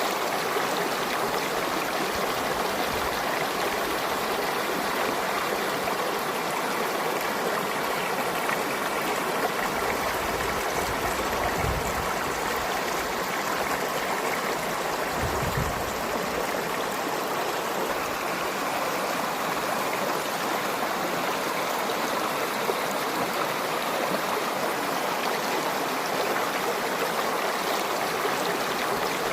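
A river or stream flowing over rocks, a steady rushing with small gurgles, with a brief low rumble twice in the middle.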